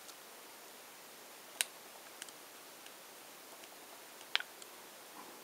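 A few sharp, faint clicks of a Philips 355 mobile phone's keys and navigation joystick being pressed while scrolling its menus, three clear ones spread over a few seconds, over faint room hiss.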